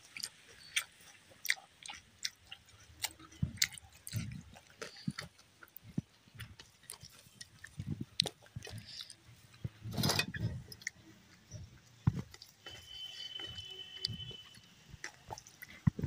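Close-up eating by hand: wet chewing and lip smacks, with fingers squishing and mixing rice and dal on a steel plate, in a string of short irregular clicks. One louder, longer rushing noise comes about ten seconds in.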